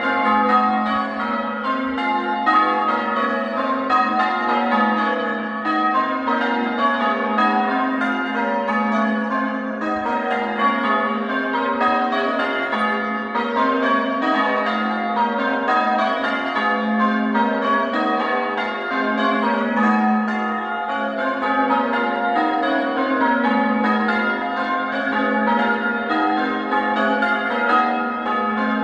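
Church bells being rung in changes, English full-circle change ringing: a steady, unbroken stream of bell strikes, one bell after another, their tones overlapping.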